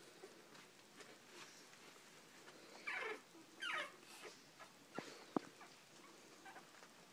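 A three-week-old pug puppy crying out twice, short high squeals that fall in pitch, as the mother dog steps among the litter. Near the end come two sharp clicks, the second the loudest sound of all.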